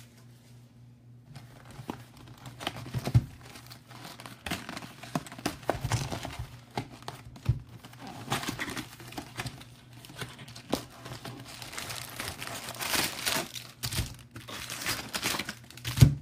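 Packs of Topps Chrome baseball cards being opened by hand: wrappers crinkling and tearing in irregular rustles, with scattered sharp clicks.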